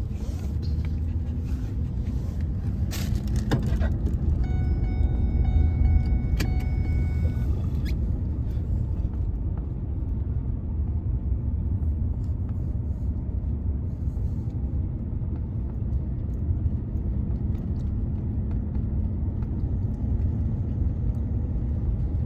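Car driving, heard from inside the cabin: a steady low rumble of engine and tyres. A few sharp clicks, and about four seconds in a steady electronic tone that lasts about three seconds.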